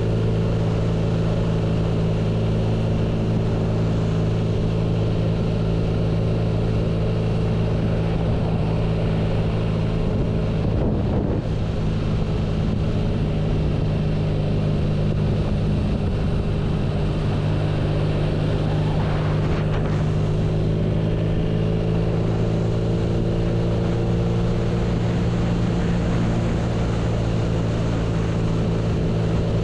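BMW R nineT's boxer twin engine running at steady revs, as when cruising, with a brief dip about eleven seconds in.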